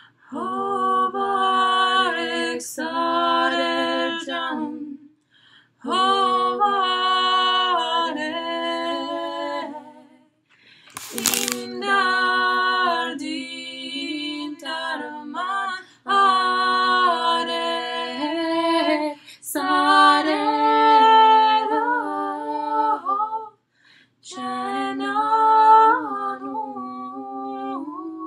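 Two women singing an Armenian folk song a cappella, in sustained phrases of a few seconds with short pauses for breath between them. A short burst of noise falls in one pause about eleven seconds in.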